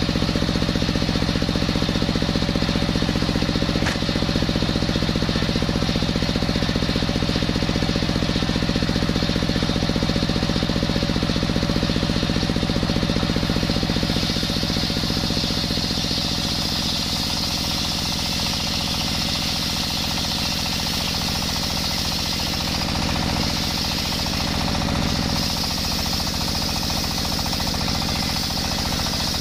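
Single-cylinder stationary diesel engine running at a steady, rapid beat, driving a large belt-driven circular saw blade. From about halfway a higher hissing whine from the blade cutting coconut wood grows over the engine.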